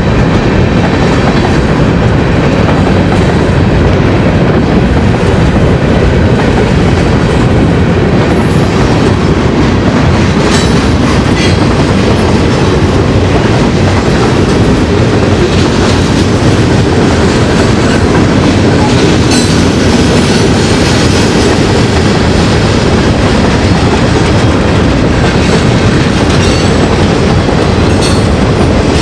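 Freight cars (covered hoppers and boxcars) rolling past close by: a loud, steady rumble with wheel clatter and a few sharp clanks. A brief high wheel squeal comes about eight seconds in.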